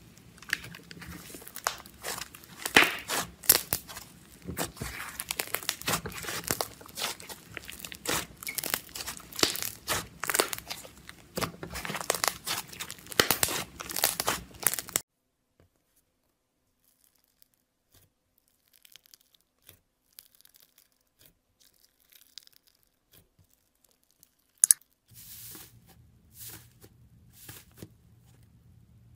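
Hands squeezing and pressing a thick pink slime, giving dense crackling and popping of trapped air. About halfway through the sound drops to near silence with only scattered faint clicks, then faint crackles over a low steady hum return near the end as a slime in a plastic tub is poked.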